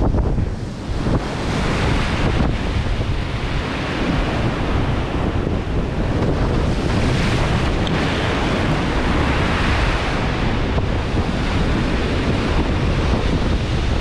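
Gale-force wind buffeting the microphone with a constant low rumble over rough sea waves breaking and surging, the surf swelling louder about two seconds in and again in the middle.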